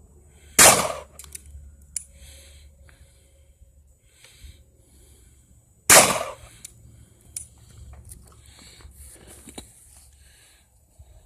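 Two gunshots about five seconds apart, each a sharp crack with a short echo. A much fainter click follows each shot a little over a second later.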